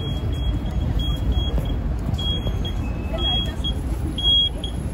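City street traffic rumbling steadily, with a string of short, high electronic beeps at uneven intervals, the loudest one near the end.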